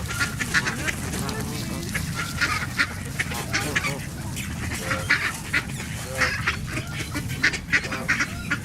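A flock of geese and ducks calling, with many short calls overlapping throughout.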